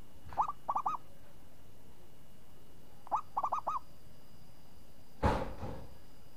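Caged zebra dove (perkutut) cooing two phrases, each a single note followed by a quick run of three or four rolling notes. About five seconds in comes a short, sharp noise.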